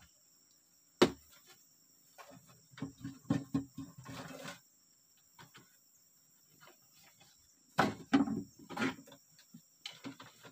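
Plastic jerry cans knocking and clattering as they are lifted and handled: a sharp knock about a second in, then bursts of rattling around three to four and eight to nine seconds in. Insects shrill steadily in the background.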